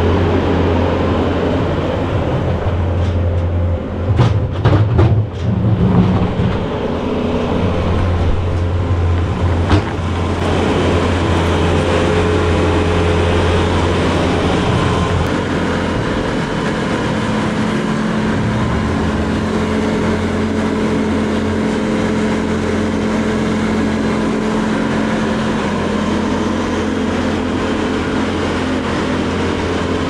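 Skid steer engine running steadily under load while a pen is cleaned out, with a cluster of sharp knocks about four to six seconds in and another about ten seconds in.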